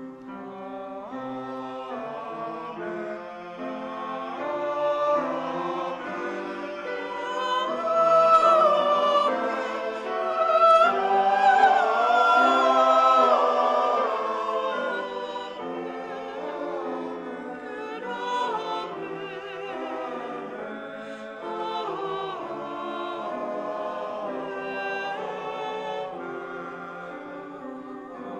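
Small mixed choir singing a benediction with grand piano accompaniment, swelling louder in the middle and easing off again.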